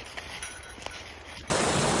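Footsteps on a trail, light scattered taps, then about one and a half seconds in a loud, steady rush of creek water cuts in abruptly.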